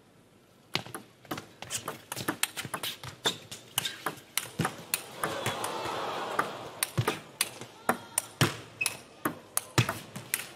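Table tennis rally: a celluloid ball clicking sharply off the rackets and the table in quick alternation, a long run of ticks at a few per second starting about a second in.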